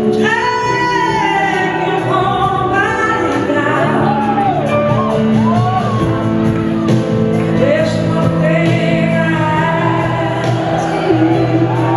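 Live band music with singing, an electric guitar among the instruments; the voices hold long, wavering notes.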